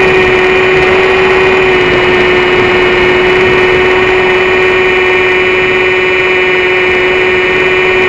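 XUAV Skysurfer RC plane's electric motor and propeller giving a steady whine, picked up by the camera on board, over a heavy rush of wind and airframe noise.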